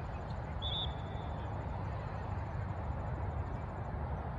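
Steady outdoor background noise, heavy and rumbling in the low end, with a brief high chirp about half a second in. A faint, fast, very high ticking runs underneath.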